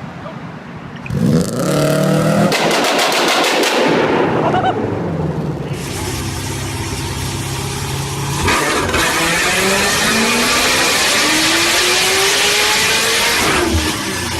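Vehicle with a very loud exhaust: the engine is revved hard with a rapid string of exhaust pops and cracks, then accelerates with a long rising engine note that cuts off sharply near the end.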